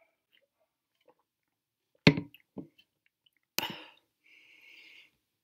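A person finishing a drink from an aluminium can: two sudden loud sounds about two and three and a half seconds in, then a short breathy hiss near the end.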